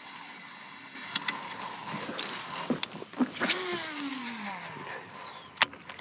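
A fishing cast: a sharp click, then the reel's spool whining as line pays out, the whine falling steadily in pitch for about a second and a half as the spool slows. Several other sharp clicks of the reel and tackle come before and after.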